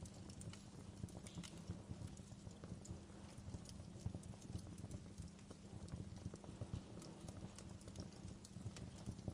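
Fire burning, with a steady low rumble under irregular sharp crackles and pops.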